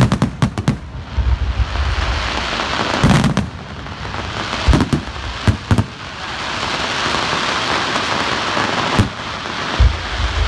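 Fireworks display: a quick run of sharp bangs at the start, then single booms every second or few, over a steady crackling hiss that grows louder in the second half.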